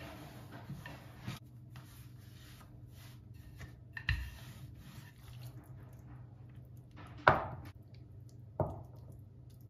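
Thick wooden rolling pin rolling out pide dough on a floured wooden board, with soft rubbing strokes and a dull thump. Two sharp knocks on the board near the end, the first the louder.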